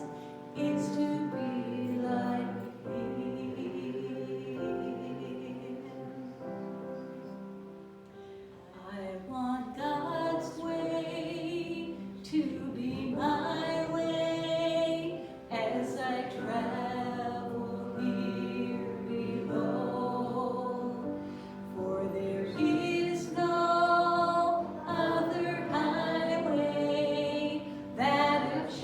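Congregational singing of a gospel hymn or worship song: many voices holding sung notes together, with sustained musical accompaniment.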